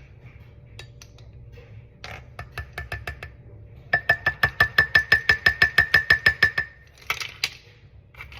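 A spoon clinking against a mug: a few light taps, then a fast, even run of about twenty ringing clinks, roughly seven a second for close to three seconds, ending in a brief scrape.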